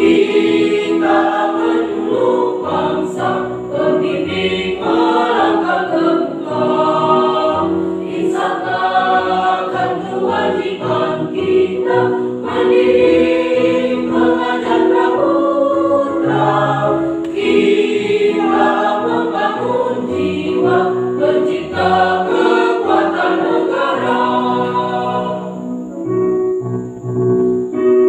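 Mixed choir of men's and women's voices singing in chorus over a held accompaniment. A couple of seconds before the end the voices stop and a keyboard carries on alone.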